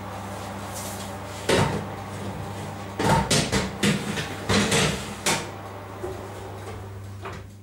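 Metal baking tray slid into an electric oven and the oven door handled and shut: a series of sharp knocks and clanks from about a second and a half in until just past five seconds, over a steady low hum.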